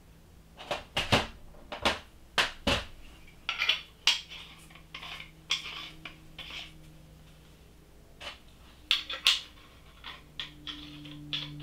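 PVC pipe fittings and brass valves handled and set down on a stainless-steel sink: a string of irregular clicks and clinks with brief rustling between them.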